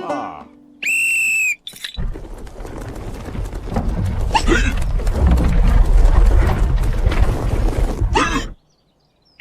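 Cartoon sound effects: a short, steady high whistle-like tone about a second in. Then a loud, noisy rumble builds for about six seconds and cuts off abruptly.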